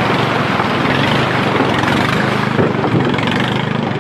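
A motor engine running steadily, a low hum under a rushing noise.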